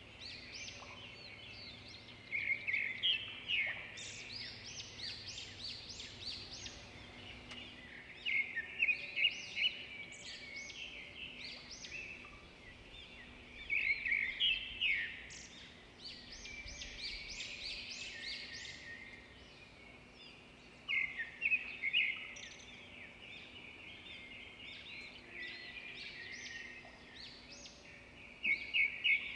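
Birds calling in bursts of rapid, high chirps that come every few seconds, over a faint steady low hum.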